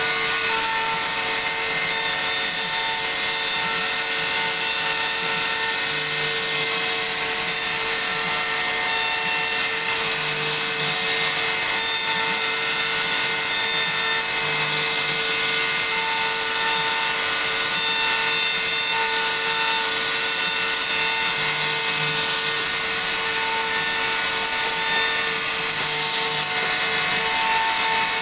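CNC router spindle carving a raised-panel pattern into a wooden door board: a steady high-pitched whine with a cutting hiss, and a fainter tone that comes and goes every few seconds as the bit moves along its path.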